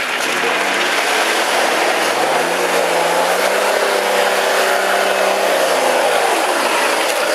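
Off-road vehicle's engine revving up over the first couple of seconds, held at high revs, then dropping back near the end, under a steady broad rushing noise.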